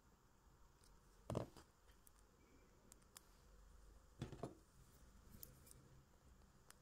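Faint clicks of small metal jewellery pliers working copper wire, heard twice as short clusters, about a second in and again about four seconds in, against near silence.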